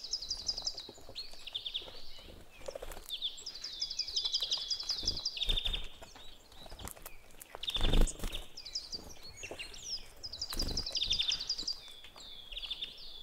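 Small birds chirping in quick repeated trills of short high notes, with a few soft low thumps between them, the loudest about eight seconds in.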